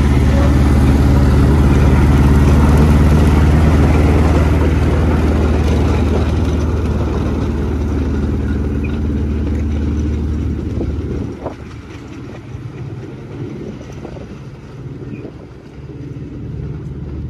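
Engine of the F.C. Hibberd 'Planet' narrow-gauge locomotive running steadily under load as it hauls a passenger train past and away. About two-thirds of the way through, the engine note drops away sharply, leaving a few faint knocks.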